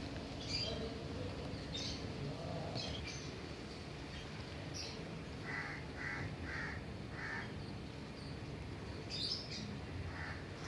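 Birds calling: scattered short high chirps, and about halfway through a run of four lower calls about half a second apart, over a steady low background rumble.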